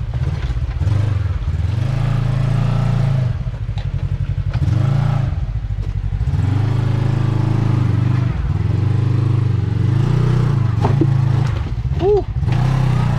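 Kawasaki Teryx KRX 1000 side-by-side's parallel-twin engine revving in repeated throttle bursts, easing off and picking up again as it crawls over a rock obstacle.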